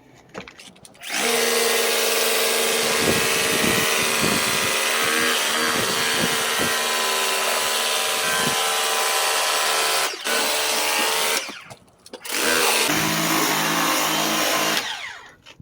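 Kobalt 40-volt handheld power cleaner running, its battery-driven pump whining steadily over the hiss of spraying water. It starts about a second in, cuts out briefly near ten seconds, stops for about a second around twelve, then runs again for a couple of seconds more.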